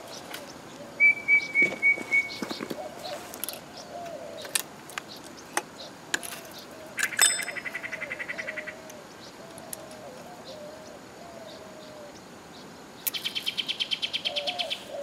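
Wild birds calling: a short high trill about a second in, two longer rapid rattling trills later on, and a run of lower repeated calls underneath. A few sharp clicks are mixed in.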